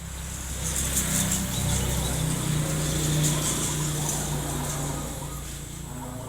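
A motor vehicle's engine running, growing louder over the first few seconds and then fading, as if passing by.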